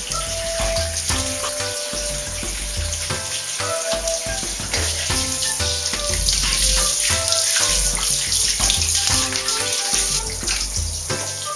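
Running water from a handheld shower hissing steadily, over background music with short held notes and a bass line.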